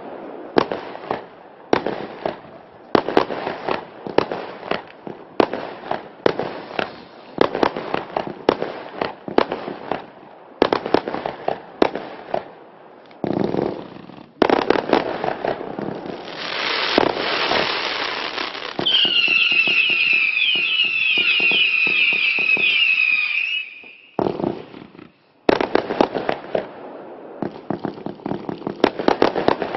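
Klasek Fireworks Show 536 F3 compound fireworks cake firing a rapid string of shots, each a sharp bang or pop. About two-thirds of the way through the shots thicken and a warbling whistle sounds for about four seconds. After a short lull the shots resume.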